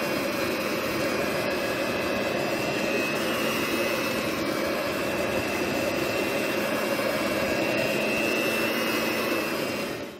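Kenwood electric hand mixer running at a steady speed, its beaters whipping thick batter in a bowl with an even motor whine. It cuts off near the end.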